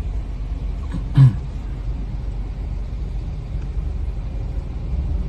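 Steady low rumble of a car's engine and road noise, heard from inside the cabin, with one short, louder sound falling in pitch about a second in.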